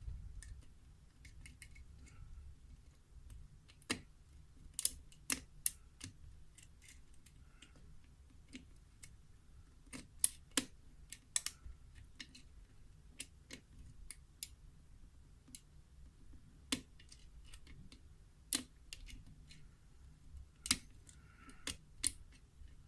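Lock pick working the spool pins of a pin-tumbler lock under tension, with heavy pin springs: scattered, irregular sharp metal clicks, a few loud ones clustered around the middle.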